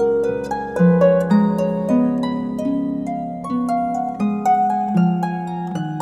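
Instrumental background music: a melody of plucked string notes over lower sustained notes.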